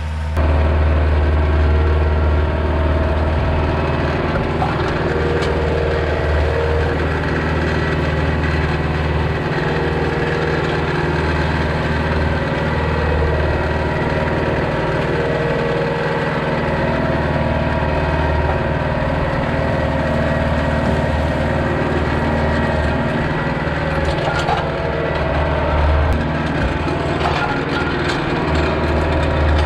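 Kioti compact tractor's diesel engine running steadily, heard close from the operator's seat, as it pulls a landscape rake through soil and brush.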